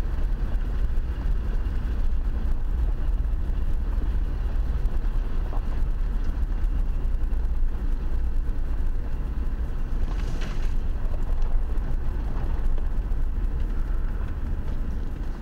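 Land Rover driving slowly along a rough track, heard from inside the cabin: a steady low engine and tyre rumble, with a short hiss about ten seconds in.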